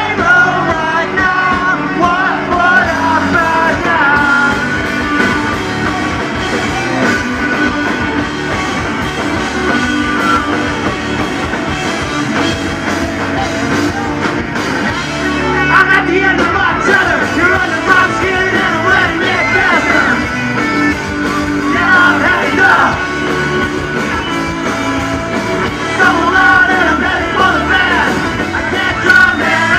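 Punk rock band playing live: distorted electric guitars, bass and drums, with sung and shouted vocals throughout.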